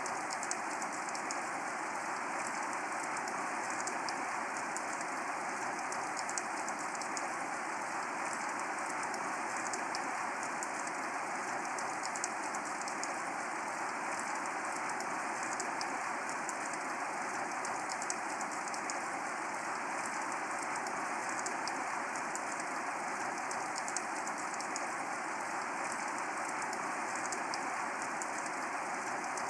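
Steady rain falling, an even hiss with a dense patter of fine drops that holds unchanged throughout.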